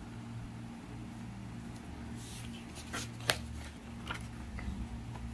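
Paper rustling, with a few sharp clicks and taps, as a spiral-bound sketchbook is lifted and turned around on a table, over a steady low hum. The rustling starts about two seconds in, and the loudest click comes a little past the middle.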